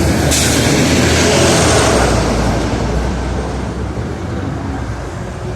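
City street traffic: motor vehicles running past close by with a low engine hum. A burst of hissing noise comes in about a third of a second in, and the whole gradually fades after about two seconds as the passing vehicle moves away.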